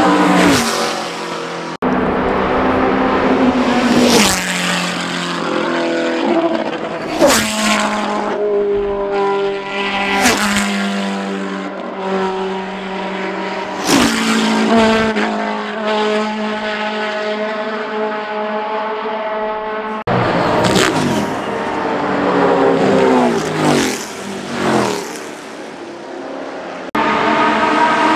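Historic racing cars passing one after another at race speed, their engines revving hard and stepping through gear changes. Several cars sweep past, each rising sharply in pitch and then falling away.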